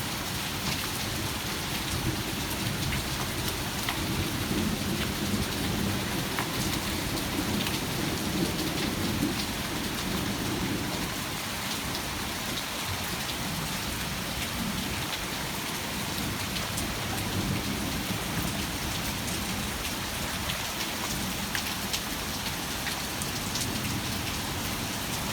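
Heavy rain pouring steadily in a thunderstorm, with scattered sharp drop hits on nearby surfaces. Low rolling thunder rumbles through the first half and again briefly in the middle.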